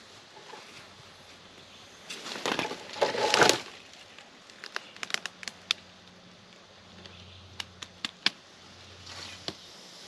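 Footsteps crunching through dry leaf litter and brush, with twigs cracking: a loud rustling stretch about two seconds in, then scattered sharp snaps.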